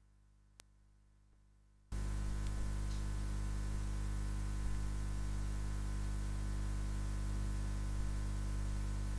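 Near silence, then about two seconds in a steady electrical mains hum with hiss cuts in suddenly and holds level.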